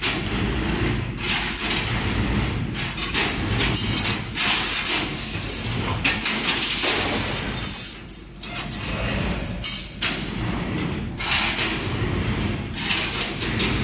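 CNC rebar stirrup bending machine (FHG-16B, for bar up to 16 mm) running: rebar feeding through the straightening rollers and being bent at the head, with continuous metallic clattering and clanking over a low rumble, easing off briefly twice in the middle.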